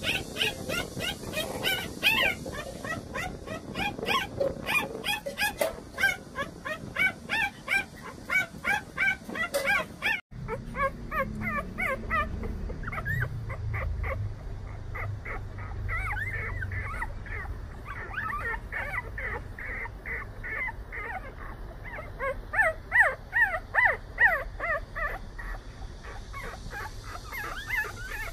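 Newborn Jindo puppies squeaking and whimpering, many short high cries several a second. About ten seconds in the sound cuts briefly, and the cries go on over a low rumble.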